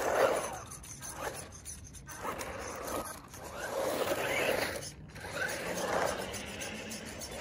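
DEERC electric RC truggy driving on asphalt: tyres scrubbing and skidding with the motor's whine, rising and falling several times as the car speeds up and turns.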